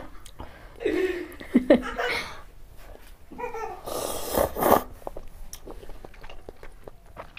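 Chicken thukpa noodles eaten close to the microphone. There are mouth sounds around a second in, a loud slurp of noodles off a fork about four seconds in, then soft chewing clicks.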